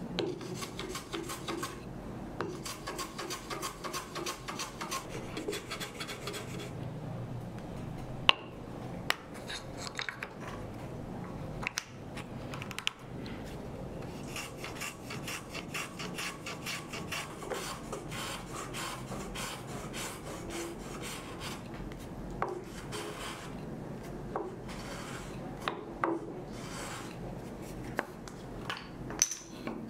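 Small wooden Japanese hand plane (kanna) sliding over a planing jig and shaving the end of a thin kumiko strip, in runs of quick repeated strokes. A few sharp knocks come between the runs.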